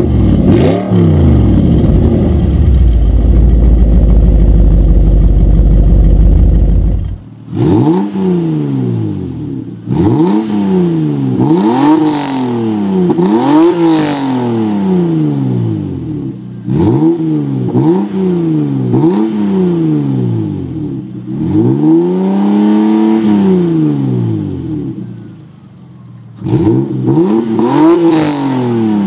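For the first seven seconds, an Audi R8 with a Capristo aftermarket exhaust running with a heavy, deep exhaust note, with one falling rev near the start. Then a Lexus SC300's inline-six is revved repeatedly while standing still, each rev rising and falling in pitch about once every one to two seconds, with one longer, slower rev past the middle.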